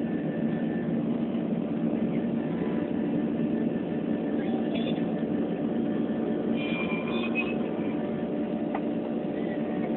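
Steady drone of jet engines and rushing air inside the cabin of a Ryanair Boeing 737 airliner during its climb, with a constant low hum underneath.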